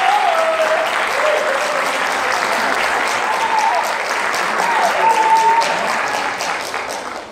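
Audience applauding, with a few voices cheering above the clapping; the applause dies away near the end.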